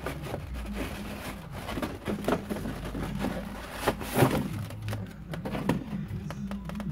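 Cardboard packaging being handled and a plastic-wrapped foam tray lifted out of the box: irregular rustling, crinkling and scraping, with a sharper clack about four seconds in.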